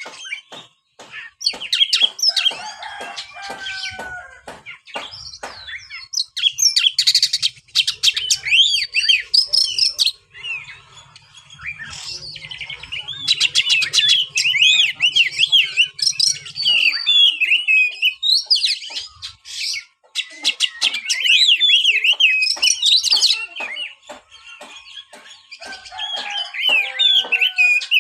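Oriental magpie-robin (kacer) singing: a long, varied song of clear whistled phrases mixed with rapid chirps and rasping trills. It comes in bursts, with short lulls about a third and two thirds of the way through.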